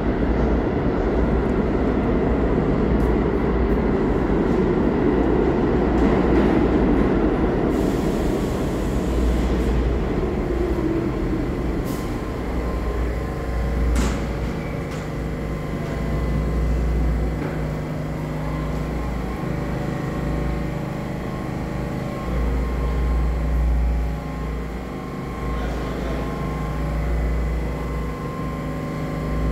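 R46 subway train rolling into an underground station and slowing to a stop, a loud rumble that dies away after about ten seconds. The standing train then gives a steady hum with a few steady tones, with two sharp clicks a couple of seconds apart.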